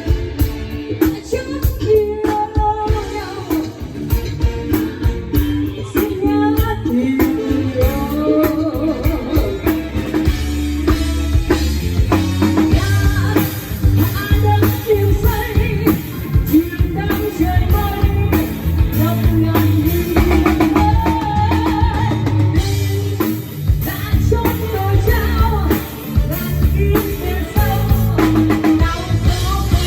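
A pop-rock song with singing, drum kit and guitar played loudly with heavy bass through a sound system being demonstrated.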